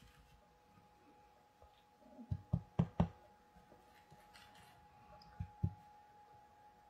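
Ink blending tool knocking on the craft desk: four quick knocks about two seconds in, then two more a few seconds later, over a faint steady hum.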